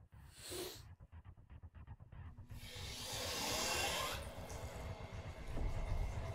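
A man with a bleeding nose takes a sharp breath through a tissue near the start. About two and a half seconds in, a bathroom tap starts running into the sink, loud at first and then steadier.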